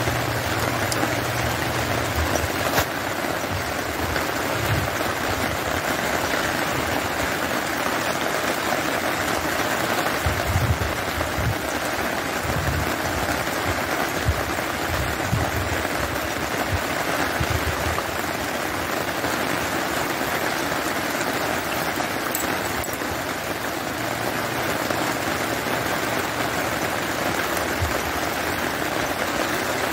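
Steady rain falling on wet ground and puddles after a storm, an even hiss with no let-up. A low hum sits under it, fading a couple of seconds in and coming back near the end, with scattered low bumps in between.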